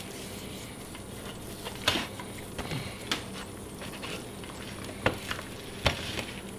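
Hands rubbing a dry spice rub into a raw whole chicken and turning it on a metal pan, with a few scattered soft slaps and taps.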